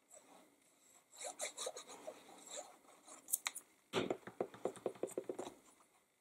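Faint rustling and scraping of cardstock and patterned paper being handled, laid on and pressed down by hand, with a quicker run of rubbing strokes about four seconds in.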